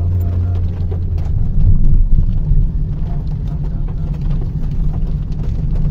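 Low, steady rumble of a car's engine and tyres on a wet road, heard from inside the cabin, swelling louder about two seconds in.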